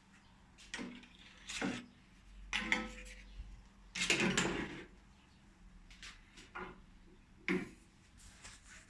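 A handful of short, irregular clatters and scrapes, the loudest about four seconds in, over a faint steady hum.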